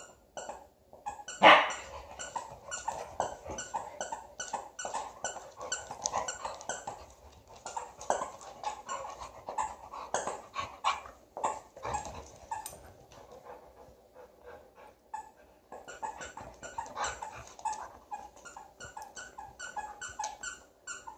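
Siberian huskies play-wrestling, giving a rapid run of short yips and play growls, with one louder bark about a second and a half in.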